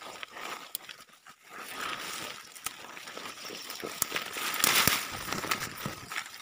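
Leaves and dry twigs rustling and crackling as someone pushes through undergrowth over dry leaf litter, with many small snaps. It is loudest about four and a half seconds in.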